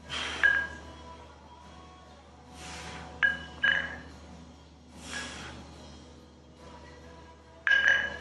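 Chrome dumbbells clinking together metal on metal at the top of each chest fly rep, each clink leaving a short ringing tone; about five clinks, one near the start, a pair a little after three seconds and a pair near the end. Between them come hard exhaled breaths with each rep.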